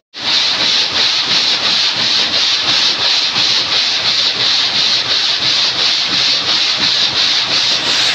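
Stone gang saw, its frame of steel blades reciprocating through a silver-gray slate block, making a rhythmic rasping mixed with the splash of cooling water pouring over the cut.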